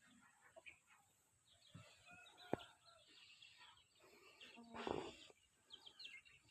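Young chickens cheeping and clucking faintly, with a sharp click about two and a half seconds in and a brief louder noise about five seconds in.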